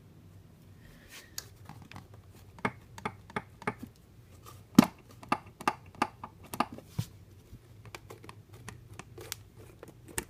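Irregular clicks and taps from the pad of a Monorover as it is worked, about twenty in all, the loudest about five seconds in. The owner fears it is a fault they caused and is unsure whether it matters.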